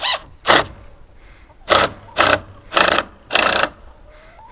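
Cordless drill driving screws into wooden boards: six short bursts of motor whirring, the first two about half a second apart, then four more in quick succession, each a little longer.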